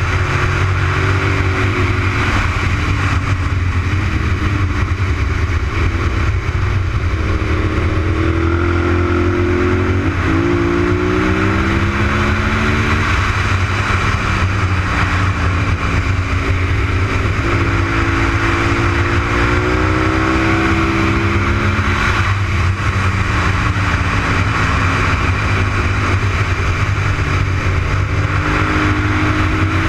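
Honda RC51's 90-degree V-twin engine at track speed, its pitch repeatedly rising under acceleration and falling on shifts and braking into corners. Heavy wind rumble on the bike-mounted camera's microphone runs underneath.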